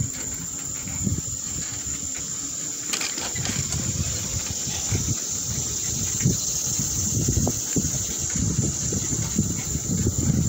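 Wind buffeting the microphone of a camera moving along a paved path, an uneven low rumble, over insects droning steadily at a high pitch in the surrounding woods.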